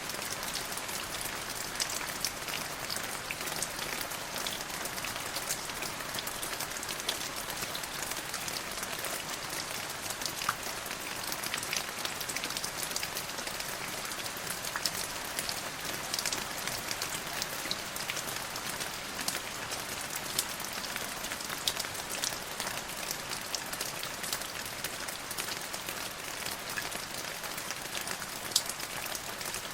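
Steady rain falling on a surface, a continuous hiss with many individual drops pattering through it.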